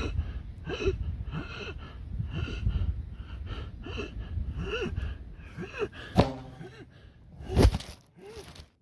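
A man panting and gasping hard for breath, exhausted after running, with a ragged, voiced gasp roughly every two-thirds of a second. Two louder, sharper gasps come near the end.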